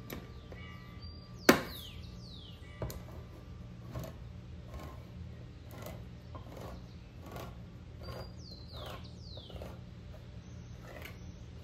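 Handheld crank can opener biting into a steel can's rim with one sharp click about a second and a half in, then cranked around the lid: a steady run of clicks, about one and a half a second, with short falling metal squeaks.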